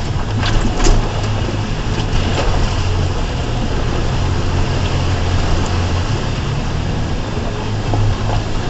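2004 Ford Ranger FX4's 4.0-litre V6 engine running steadily at low revs while the truck drives off road, with a few knocks and rattles about a second in.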